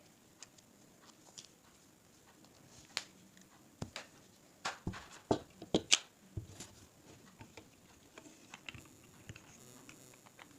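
Scattered clicks and taps of GoPro vlogging accessories being handled and fitted together, with a cluster of sharper knocks about five to six seconds in.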